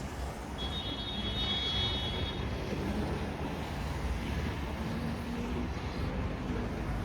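Steady low rumble of road traffic in a city, with a brief high-pitched whine about a second in.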